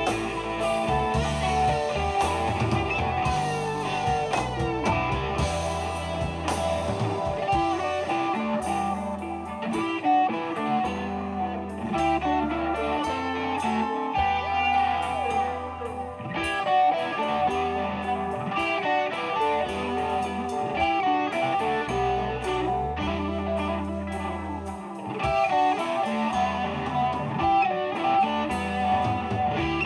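Live rock band playing an instrumental passage: electric guitars over bass guitar and drums.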